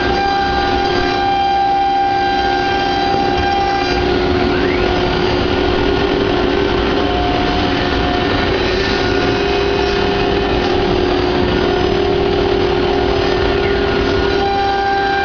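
CNC wood carving router running steadily, its spindle giving several sustained whining tones over a constant noise, with brief pitch glides now and then.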